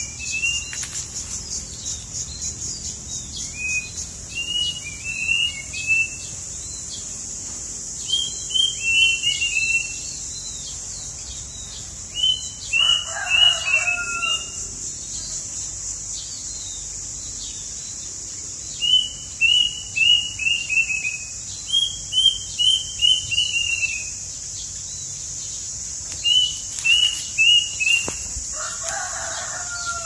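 A songbird sings short phrases of four to six quick, descending whistled notes, repeated every few seconds, over a steady high-pitched hiss. A rooster crows twice, about halfway through and near the end.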